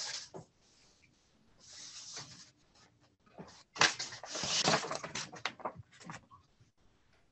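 Rustling handling noises close to the microphone in two bursts: a soft one about two seconds in, then a louder one that starts with a sharp knock about four seconds in and lasts about two seconds.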